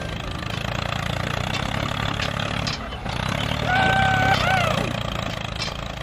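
Engine running steadily with a low, even rumble. About four seconds in, a short pitched tone holds for about half a second and then wavers.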